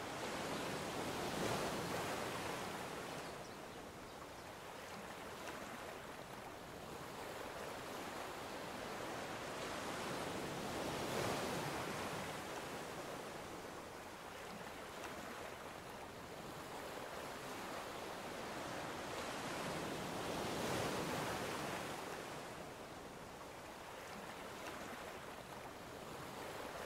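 Ocean surf on the beach: a steady wash that swells three times, about ten seconds apart, as waves break.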